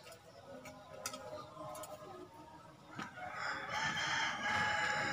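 A rooster crowing once: a long call starting about three seconds in, after a few faint clicks.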